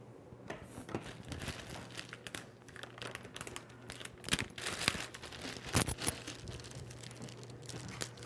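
Crinkling and rustling from things being handled at a bathroom counter, with a few louder clacks near the middle.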